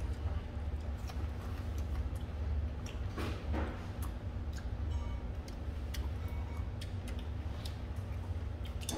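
Scattered light clicks of metal chopsticks against each other and the tableware while eating, over a steady low hum. A brief hiss comes about three seconds in.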